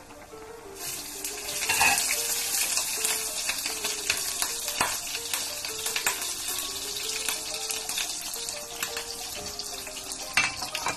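Pot of vegetable soup broth boiling hard: a steady bubbling hiss that starts about a second in, with a few sharp clicks and knocks, one of the loudest near the end. Background music plays throughout.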